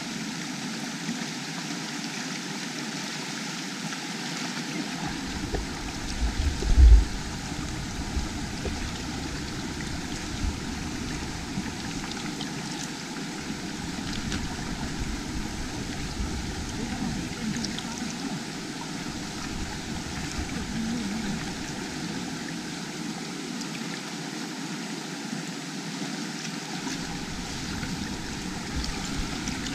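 Steady rushing noise of flowing water, with a loud low thump about seven seconds in.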